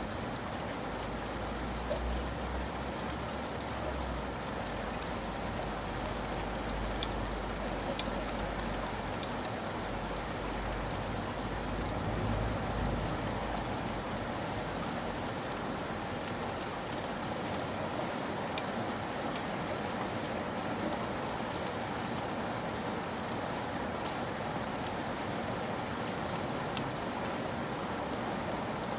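Steady rain falling, with single drops striking sharply here and there over the even hiss. A low rumble runs underneath through the first half, then fades.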